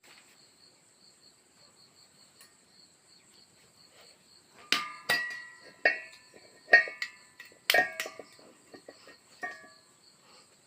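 Metal gas-stove parts knocked and clanked together several times in a row, each strike ringing briefly, against a faint steady high pulsing chirp like a cricket.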